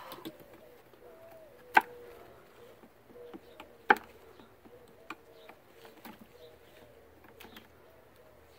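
Wooden beehive boxes and frames being handled. There are two sharp wooden knocks about two seconds apart, with lighter taps and clicks in between.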